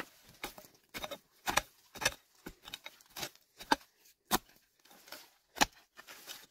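A hand digging tool chopping again and again into forest soil and roots while digging out wild potatoes. The strikes are short and sharp, roughly two a second and uneven in strength, with one louder strike about five and a half seconds in.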